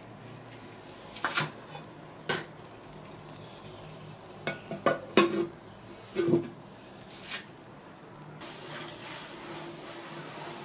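A ceramic bowl being handled and covered on a worktop makes a string of knocks and clinks, about eight in all, loudest around the middle. From about eight seconds in, a hand wipes the floured table with a steady rubbing hiss.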